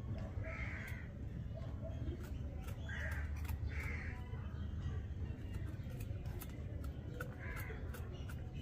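Crows cawing, four short caws spread over several seconds, over a steady low rumble and scattered faint clicks.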